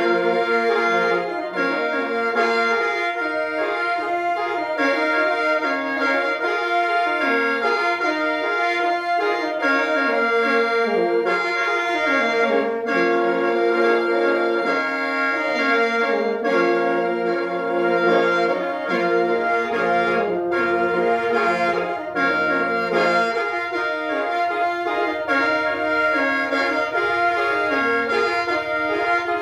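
Two khaens (Lao bamboo free-reed mouth organs) tuned in F, played together in lai noi mode: a steady drone held under a continuously moving, reedy melody.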